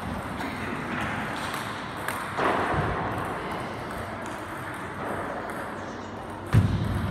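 Quiet pause in table tennis play, with room noise in a reverberant sports hall. Near the end comes one loud sharp knock with a low thud as the serve is struck.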